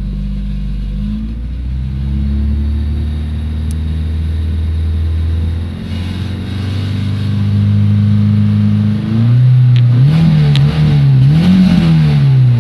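Warmed-up car engine idling steadily, then revved up and down twice before dropping back toward idle near the end. It has a knock that the owner takes for a rocker arm.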